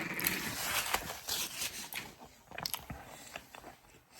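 Someone chewing orange segments close to the microphone: small wet crunches and mouth clicks, busier in the first half and thinning out toward the end.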